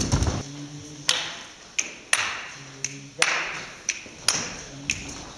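Sharp percussive taps keeping time for dancers in a repeating rhythm: a strong stroke about once a second with a lighter one between. Each tap rings briefly.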